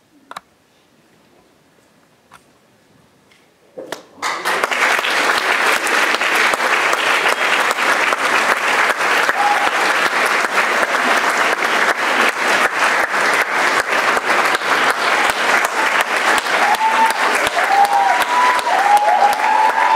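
Audience applause breaking out after about four seconds of hush that follows a choir's final chord, then going on loud and dense. High, gliding cheers rise above the clapping near the end.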